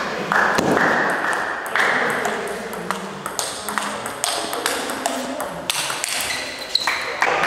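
Table tennis rally: the plastic ball clicking sharply off the rubber-faced bats and bouncing on the table, back and forth in a quick, uneven rhythm of hits.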